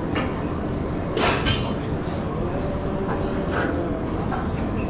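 Steady low rumble of gym background noise, with a short clatter of knocks a little over a second in.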